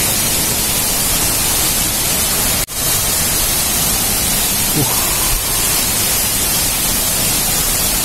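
Steady rushing noise of a waterfall's falling water, loud and even. It cuts out for a split second about a third of the way in.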